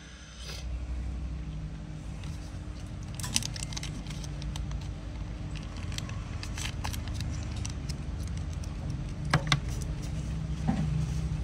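A few light metallic clicks and clinks from a Zippo lighter being handled, spaced several seconds apart over a steady low hum.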